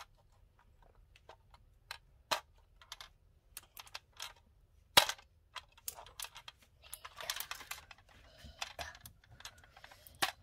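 Scattered clicks and taps of a hard plastic candy toy case being handled and pried at to open it, with one sharp snap about five seconds in and a stretch of rustling around seven to eight seconds.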